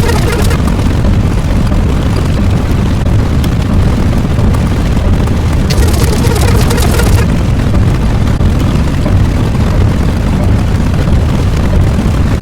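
Loud, steady low rumble, with a brief surge of hiss about six seconds in.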